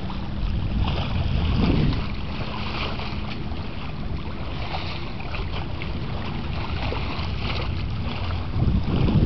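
Wind buffeting the microphone aboard a small sailboat, a steady low rumble with the hiss and splash of choppy water over it. Stronger gusts come about a second and a half in and again near the end.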